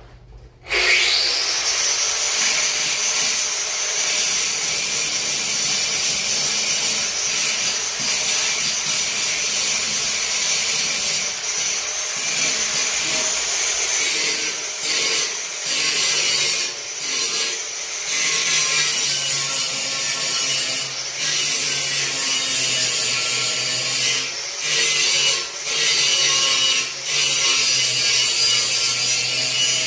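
A power tool starts about a second in, its whine rising as it spins up, then runs steadily while cutting or grinding, with a few brief drops in level.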